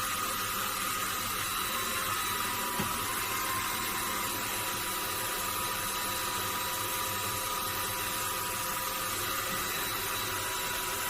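Vacuum cleaner running steadily: an even hiss with a thin, constant whine.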